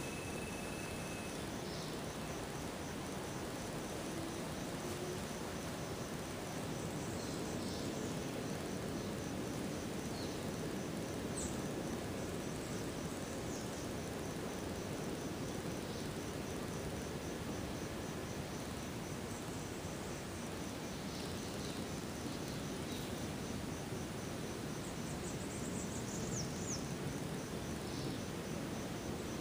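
Outdoor garden ambience: an insect chirping high in a steady, even pulse over a constant low rushing background, with a few short high chirps now and then.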